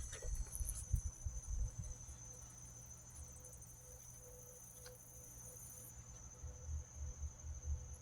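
Faint, steady high-pitched trilling of insects, with soft low bumps now and then.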